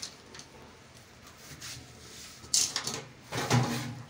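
Clunks and scrapes of a petrol generator's sheet-metal fuel tank and frame being handled as the tank is worked loose. The loudest is a sharp scrape about two and a half seconds in, with more knocking just after.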